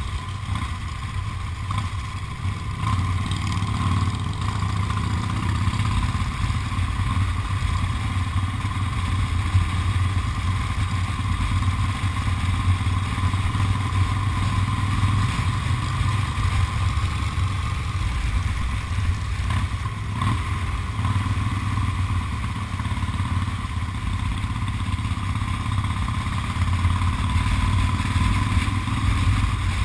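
Motorcycle engine and road noise while riding at a steady speed, heard from the moving bike itself, a continuous low rumble that rises and falls only slightly.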